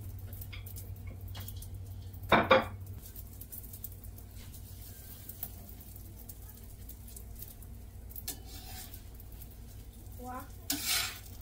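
Kitchen sounds of cooking: small clicks and light clatter of utensils and pans over a steady low hum, with one louder clatter about two and a half seconds in. A voice is heard briefly near the end.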